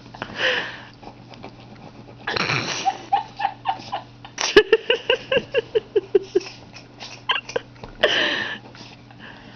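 Small Maltese–Shih Tzu dog digging and pawing at a blanket on a bed while settling down for sleep: fabric rustling with many quick scratches, and three longer rustling bursts, one near the start, one about 2.5 s in and one about 8 s in.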